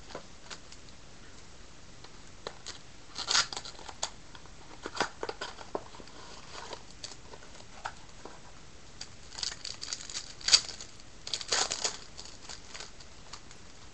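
A trading-card pack wrapper being torn open and crinkled by hand: scattered crackles and short tearing sounds, busiest about three seconds in and again between about nine and twelve seconds.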